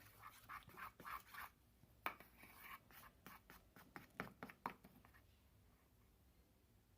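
Glue-based slime mixture being stirred: faint, irregular scraping and tapping strokes that die away about five seconds in.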